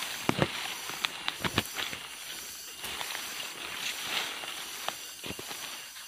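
Grass and dry stalks rustling and brushing as someone pushes through dense undergrowth on foot. There is a cluster of sharp crackles in the first two seconds and a few more later.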